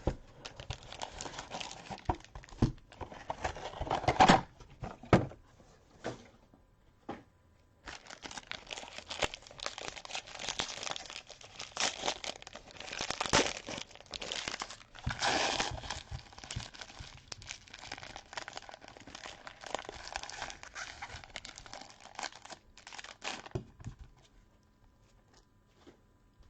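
Plastic and packaging crinkling and tearing as a new box of trading cards is unwrapped and opened by hand, in long stretches of rustling with a short pause about six seconds in.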